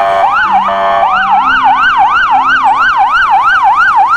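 Police car siren: a slower sweep that changes about a second in to a fast yelp of about three rising-and-falling sweeps a second, with a second, slower siren sweep faintly underneath.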